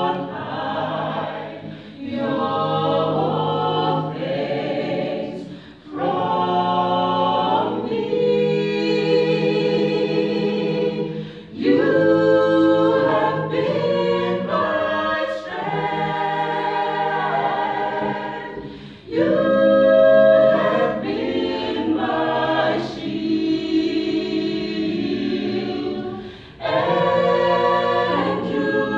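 A small mixed group of men and women sings a cappella in harmony, holding long notes. Each phrase is separated by a short break for breath.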